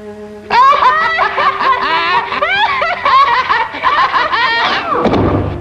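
Cartoon rabbits laughing hysterically: loud, fast, high-pitched chuckling and snickering that breaks out about half a second in, over a held music note. The laughing gives way to a falling swoop near the end.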